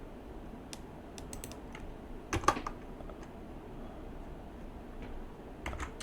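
Computer keyboard keys being tapped in scattered strokes, with a louder couple of clacks about two and a half seconds in and another pair near the end, over a faint steady background hum.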